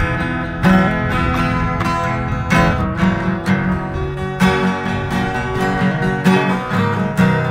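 Several acoustic guitars strummed and picked together, playing a rhythmic chord-based tune.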